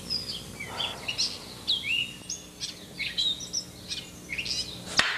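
Wild songbirds chirping and whistling, many short calls one after another over a faint steady hum, with one sharp click about five seconds in.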